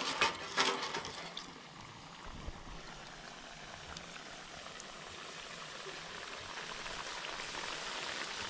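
Hot oil sizzling and bubbling in a wok over a wood fire, a steady hiss that slowly grows louder toward the end.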